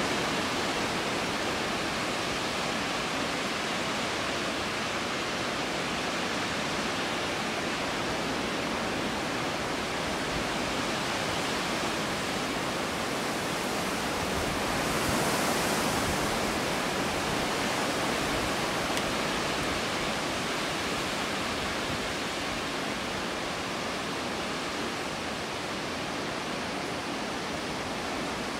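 Gusty wind blowing, a steady rushing hiss that swells in a stronger gust about halfway through.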